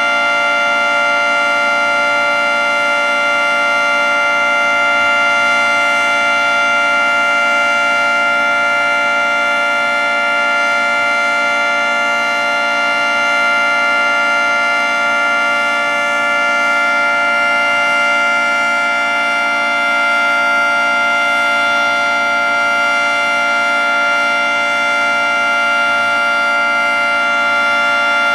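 Federal Signal 3T22 three-tone outdoor warning siren sounding the Alert signal, a steady, very loud chord held at constant pitch, with only slight swells in loudness.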